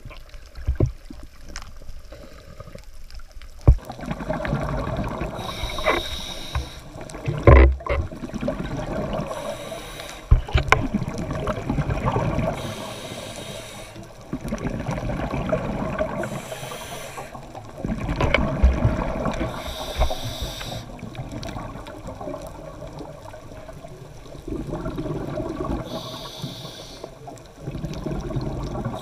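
Scuba diver breathing through a regulator underwater: a hiss on each inhale and a bubbling rush on each exhale, repeating every three to four seconds.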